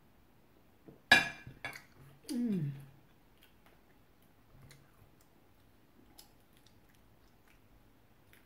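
A ceramic coffee mug is set down on a table with a sharp clink about a second in, followed by a couple of lighter knocks. Next comes a short 'ahh' from a woman's voice that falls in pitch, then faint chewing of toast.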